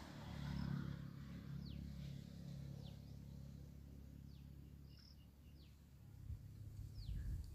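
Faint low frying noise from mango pieces in hot sesame oil, a little stronger in the first second, with a bird repeating a short falling chirp about every second and a half.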